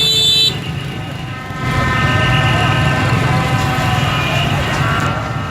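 Street-celebration din: a steady rumble of motorbike engines, with a blaring horn tone that cuts off about half a second in and more horns starting up again about two seconds in.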